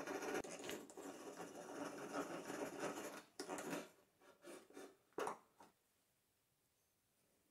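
Hand-cranked egg-beater drill boring into a wooden board, its gears whirring as the crank turns. The steady run breaks off about three seconds in into a few shorter bursts of cranking, which stop about two seconds before the end.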